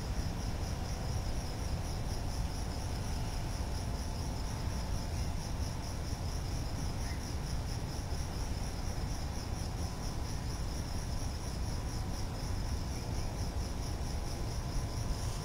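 Crickets chirping in a steady, fast, even pulsing trill, over a constant low background rumble.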